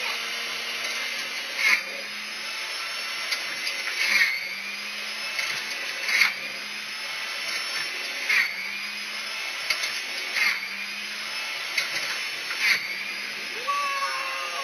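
Steady motor-like whirring with a low hum. A short rising whine and burst repeats about every two seconds.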